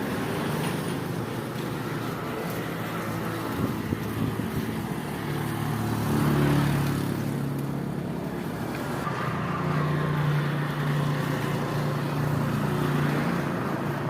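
Motor vehicle engines running by on a road, a low hum that swells about six seconds in and again from about nine seconds, over a steady outdoor rush.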